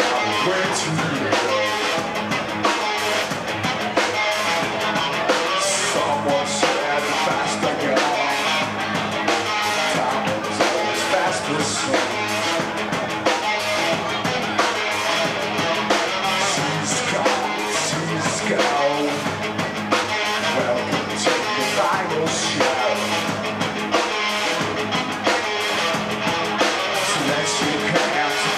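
Rock band playing live: guitars over a drum kit keeping a steady beat, in the band's own tune with a dark sound.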